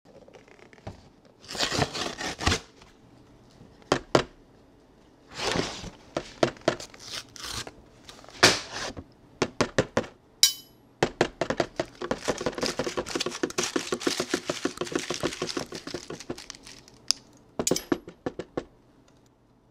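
Wrapping being crinkled and torn, with sharp clicks and knocks: a string of separate bursts at first, then a long run of dense crinkling. A brief high squeak comes about ten seconds in.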